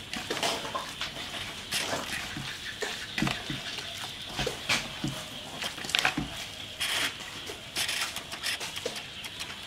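Hands squeezing and crumbling freshly grated coconut in a stainless steel bowl: irregular rustling and squishing with light clicks of fingers against the bowl.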